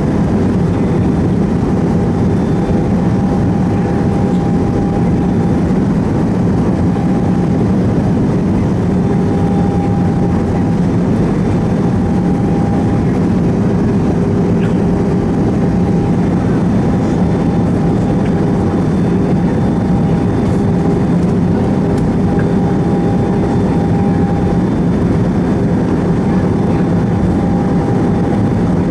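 Steady cabin noise inside an Airbus A320: engine and airflow rumble, with a thin mid-pitched tone that drops out briefly every few seconds.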